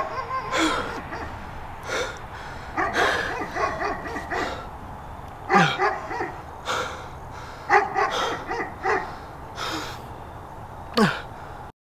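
Wordless yelping cries repeated every second or so, several of them falling steeply in pitch.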